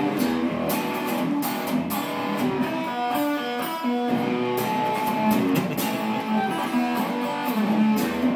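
Handmade Stratocaster-style electric guitar played plugged in, strumming chords with a short run of single picked notes about three seconds in.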